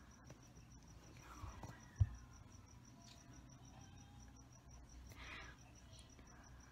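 Quiet room with faint rustling, a single soft thump about two seconds in, and a short breathy noise around five seconds. A faint, evenly spaced high ticking runs underneath throughout.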